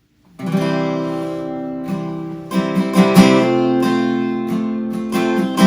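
Acoustic guitar strumming sustained chords, coming in suddenly just after the start, as the instrumental opening of a worship song.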